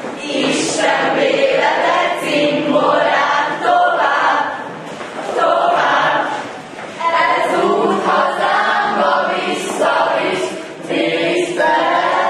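A group of school-leavers singing a farewell song together.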